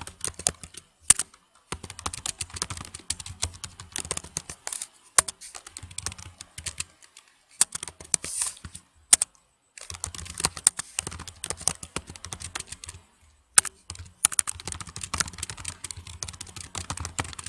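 Typing on a computer keyboard: quick runs of keystrokes broken by short pauses, with a few louder single key strikes.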